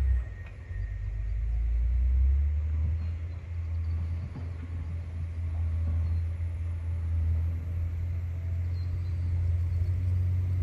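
John Deere 670 GP motor grader's diesel engine running with a deep, steady low rumble; it drops briefly about half a second in, then comes back up and holds.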